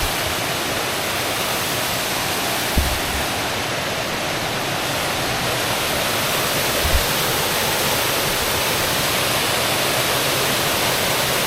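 Waterfall water rushing steadily, with two brief low thumps: one about three seconds in and one about seven seconds in.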